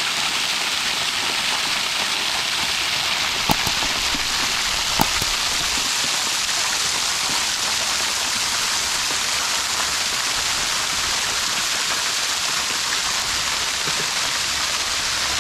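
Water gushing under its own pressure out of the capped, holed top of a 340-foot borewell's standpipe, spraying up and falling back to splash on stony ground: a steady, even hiss.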